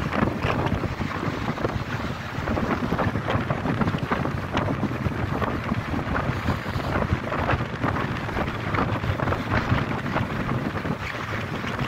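Wind buffeting a handheld phone's microphone: an uneven, gusty rumble with no steady tone.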